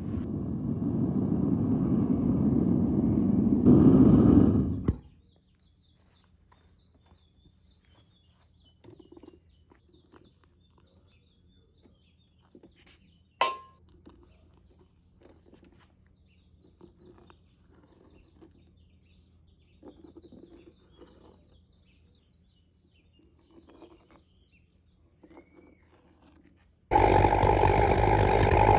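Propane furnace burner running loudly with a steady rush, dying away about five seconds in. Then a long quiet stretch with faint scraping as a steel spoon stirs the melting cans in the crucible, and one sharp click about halfway. The burner starts running again near the end.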